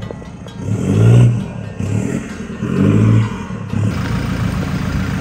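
A 4x4 vehicle's engine revving in short bursts, once about a second in and again around three seconds, with a steady run in between, as the vehicle is maneuvered into position.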